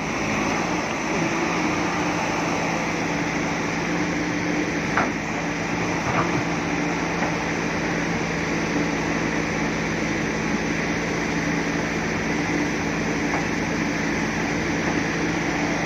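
Heavy diesel engine running steadily, with a couple of sharp knocks about five and six seconds in.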